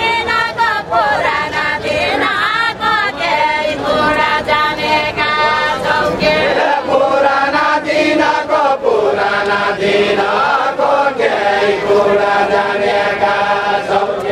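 A group of voices singing a Nepali deuda song together in unison, in drawn-out phrases with long held notes and no accompaniment.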